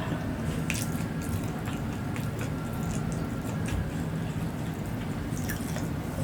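Close-miked eating sounds: chewing with small wet mouth clicks and smacks every fraction of a second, over a steady low hum.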